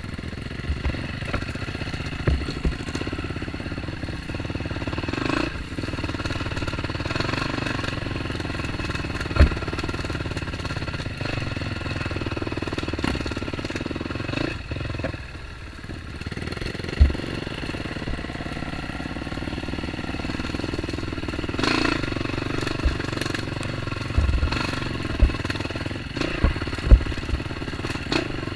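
Dirt bike engine running under varying throttle on a trail ride, dropping off briefly about halfway through, with several short thumps and some clatter.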